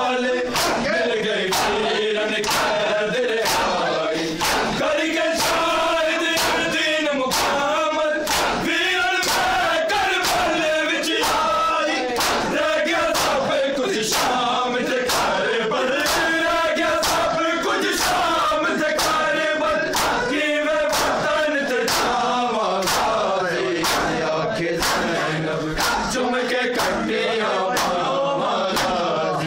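Men chanting a Shia noha lament together, kept in time by a steady beat of bare-handed slaps on bare chests (matam), about three strikes every two seconds.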